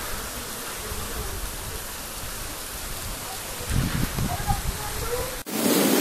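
Heavy rain pouring steadily, with a few low bumps about four seconds in. About five and a half seconds in the sound cuts abruptly to louder, denser rain.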